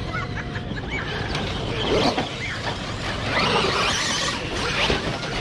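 Radio-controlled monster trucks racing on a dirt track, their motors whining and tyres churning dirt. The sound swells as they pass, about two seconds in and again in the second half.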